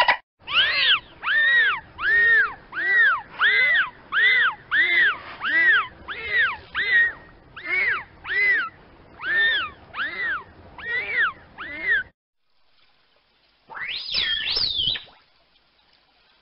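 Dolphin whistles: a quick run of short whistles, each rising and then falling in pitch, about one and a half a second for some twelve seconds. After a short pause comes a single longer, warbling whistle.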